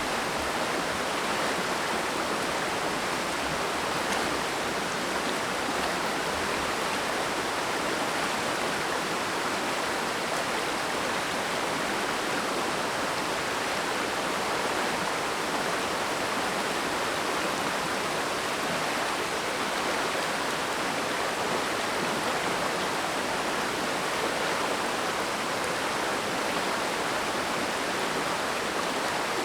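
Mountain stream flowing in a steady, even rush of water.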